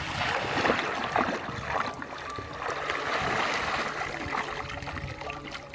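Shallow muddy water sloshing and splashing as hands grope through it, then water pouring and dribbling out of a woven bamboo basket lifted from the water.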